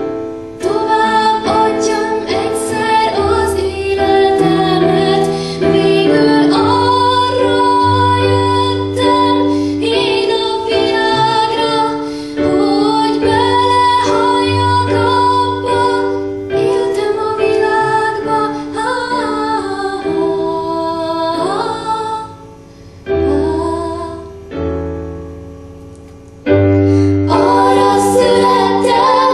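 Two girls singing a song in Hungarian into microphones, accompanied by an electronic keyboard played like a piano. About two-thirds of the way through, the music drops quieter for a few seconds, then comes back at full level.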